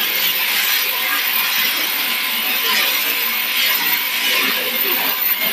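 Electric sheep-shearing handpiece running steadily as it cuts the fleece from a sheep's belly and underside.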